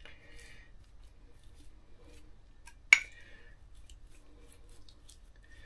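Pastry brush stroking beaten egg onto a raw pastry pie lid, a faint soft scratching, with one sharp clink of the ceramic egg mug about three seconds in.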